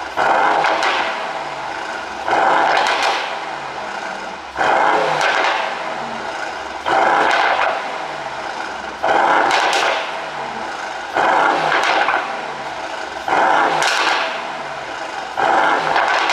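Mercedes-AMG GT 63 S's twin-turbo V8 blipped eight times, about every two seconds, each rev falling away with pops and crackles from an ECU pop-and-bang exhaust tune.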